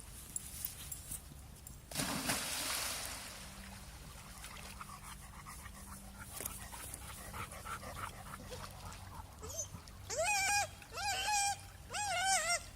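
Dog whining while swimming: a run of short, high-pitched, arching whimpers starting about ten seconds in, the strange noise she makes when her owner runs away from her. Earlier, about two seconds in, a brief rush of noise.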